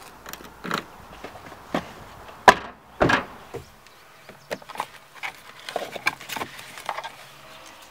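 Footsteps, then a car door being shut: two loud knocks about two and a half and three seconds in, the first the loudest. Lighter clicks and rustling follow as hands rummage in a compartment inside the car.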